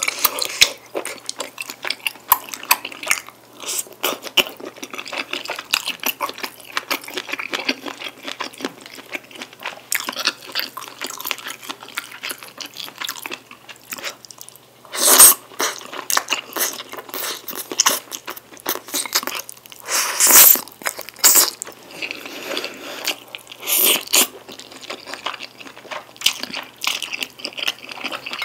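Close-miked chewing and wet mouth sounds of someone eating rice cakes and wide glass noodles in black-bean sauce, with a few louder bursts in the second half.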